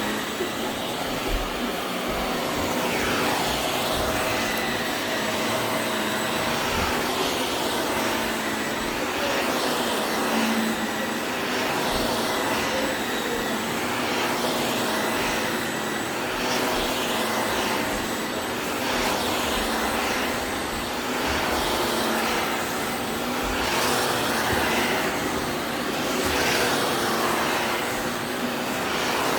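Vacuum cleaner running with a steady motor whine. Its sound swells and dips every few seconds.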